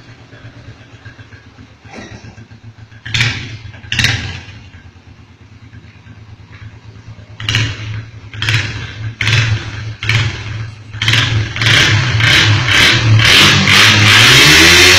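A vehicle engine idling, then revved in short blips about once a second that come harder and closer together, ending in a long loud rev held high for the last few seconds. It is being revved on purpose to make noise.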